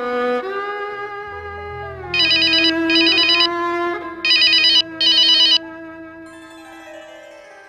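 Recorded string music playing with a telephone ring laid over it: four short trilling rings in two pairs, about two seconds into the music. The music then fades away near the end.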